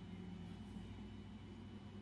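Faint steady low background hum, with no distinct handling sounds or clicks.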